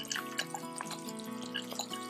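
Background music with sustained notes, over light popping and bubbling from the pot of lentil curry on the stove.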